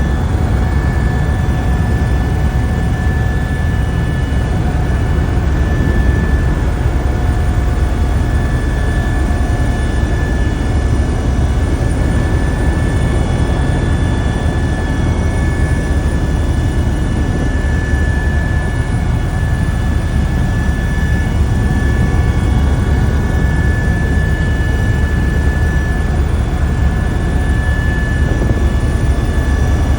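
Helicopter in flight: a loud, steady rumble of rotor and engine with a steady high whine over it.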